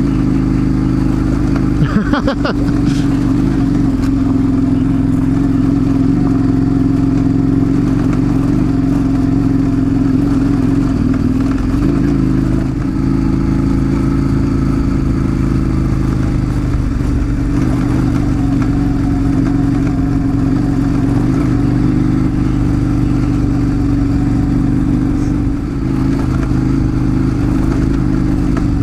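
Large twin-cylinder adventure motorcycle engine running steadily at cruise, easing off briefly twice.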